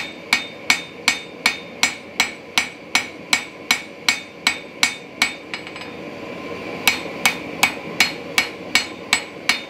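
Diagonal peen hammer striking a red-hot Damascus steel billet on an anvil to draw it out, steady blows about two and a half a second, each with a short bright ring from the anvil. The blows pause for about a second and a half midway, then resume.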